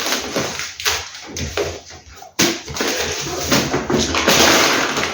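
Plastic shopping bags and packaging rustling and crinkling in uneven surges as groceries are handled. It drops off briefly about two seconds in and comes back suddenly.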